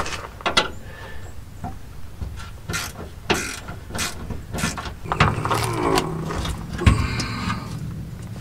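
Hand tools clanking on the steel of a pickup's rear shock mounts as the old shock bolts are worked on: a series of sharp metal knocks, with a busier stretch of ringing metal past the middle.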